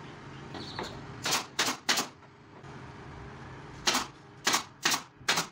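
Seven sharp, short strikes in two groups, three quick ones and then four, typical of nailing the panels of a wooden subwoofer cabinet, over a steady low hum.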